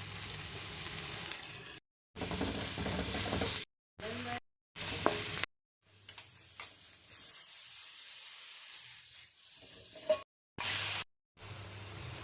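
Food sizzling as it fries in a pan for a chicken curry, stirred with a few sharp clicks of a utensil against the pan. It comes in several short stretches that start and stop abruptly.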